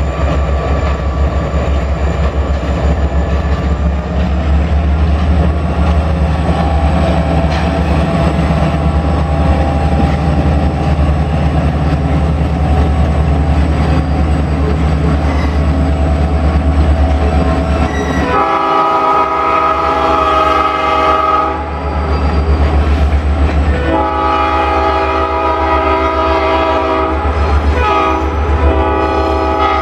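EMD GP35 and GP7 diesel locomotives hauling a passenger train: a steady low engine drone, then, about eighteen seconds in, the locomotive horn sounds two long blasts and a shorter one near the end.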